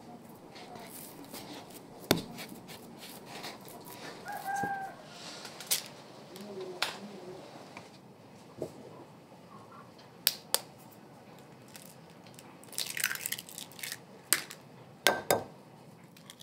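Chickens clucking and squawking now and then, among scattered sharp clicks and knocks.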